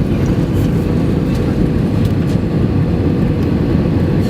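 Steady, loud rumble of an Airbus A320 heard from inside the passenger cabin: engine and airflow noise, deep and even, with a faint steady hum above it.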